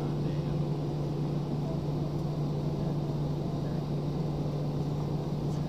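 Airbus A320-family airliner's jet engines and airframe heard from inside the cabin while taxiing: a steady hum with a strong low drone over a rumble.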